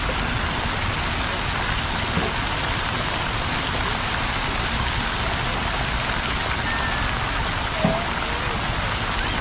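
Fountain water falling and splashing steadily into a pool, an even rushing hiss, with a small knock about eight seconds in.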